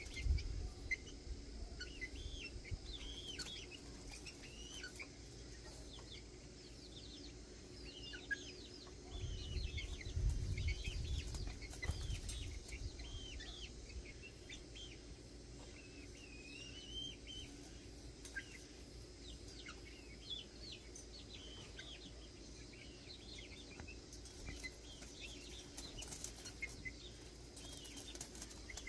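Young serama chickens peeping again and again in short, high chirps that sweep up and down, with a low rumble about nine to twelve seconds in.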